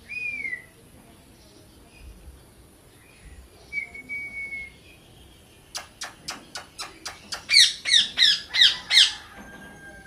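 Indian ringneck parrot calling: a short whistled note, a thin held note, then a quick run of sharp clicks that leads into six loud harsh squawks, about three a second.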